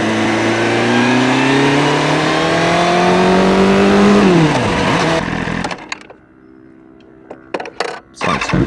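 Motorcycle engine pulling under acceleration with wind noise, its pitch rising steadily for about four seconds, then falling quickly as the throttle closes. About six seconds in the sound drops away to quiet broken by a few sharp clicks, and the engine comes back loud near the end.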